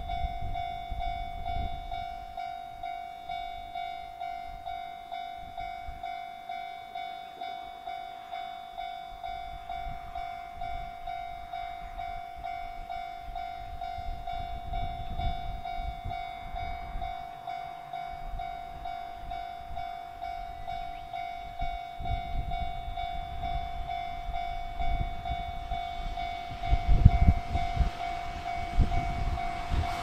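Level-crossing warning bell ringing steadily at about two strikes a second. Near the end the low rumble of an approaching electric freight train grows louder.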